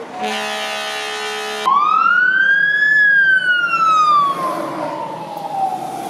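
Fire truck air horn blasting for about a second and a half, then a fire truck siren that rises in pitch for about a second and winds slowly down, which is the loudest part.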